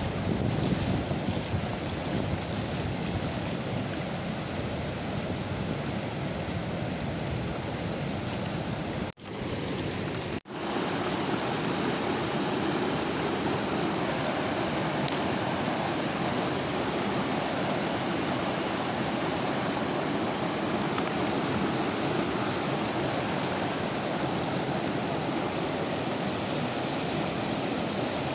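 Steady rush of a fast whitewater river running over boulders. The sound cuts out twice, very briefly, about a third of the way through.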